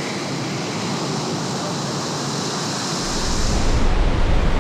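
Roar of the Pailón del Diablo waterfall, a steady rushing of pounding water. About three seconds in a deep rumble joins it and it grows louder.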